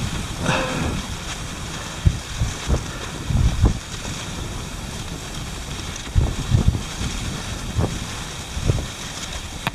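Wind buffeting the microphone in irregular low gusts over a steady hiss of cross-country skis gliding in groomed snow tracks.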